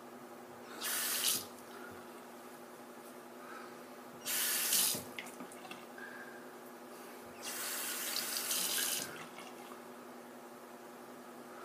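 Bathroom sink tap turned on and off in three short bursts, water splashing into the basin. A steady low hum runs underneath.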